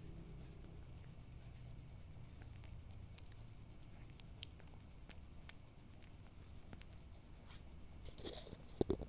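Faint, steady high-pitched cricket chirring, with soft scattered clicks of a kitten eating rice close to the microphone and two sharp knocks near the end.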